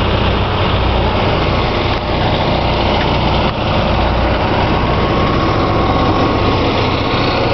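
An engine running steadily, a constant drone with a low hum that holds one pitch.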